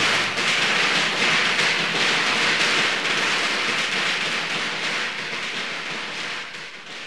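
A long string of firecrackers crackling in a rapid, continuous stream of pops, fading away near the end.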